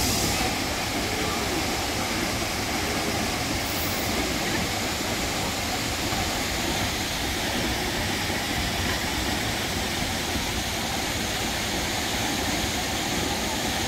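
Waterfall pouring into its plunge pool, a steady, even rushing sound.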